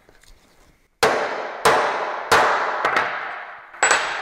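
Hammer striking a homemade dimple die punch, metal on metal, pressing a countersink dimple into a sheet metal panel over its die. Four ringing blows and one lighter tap, starting about a second in.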